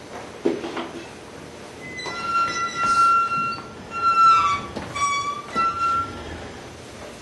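High squeaky tones from an improvised experimental sound performance, each held for up to a second or so, several in a row, with a few short sliding pitches near the middle. A shorter, lower sound comes about half a second in.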